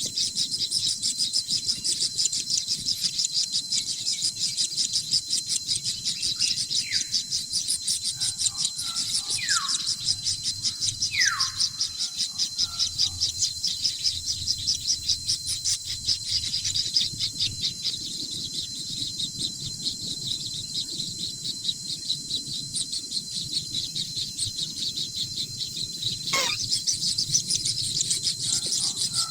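Newly hatched kingfisher chicks giving a continuous, rapidly pulsing high chirring, broken by a few short whistles that fall in pitch.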